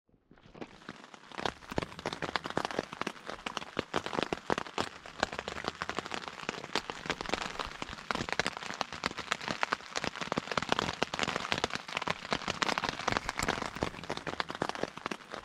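Steady rain falling: a dense, irregular spatter of drops that fades in over the first second or so.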